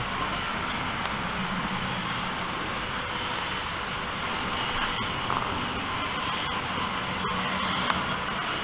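Model trains running on the layout's track: a steady whirr and rumble of small electric motors and wheels on rail, with a few faint clicks.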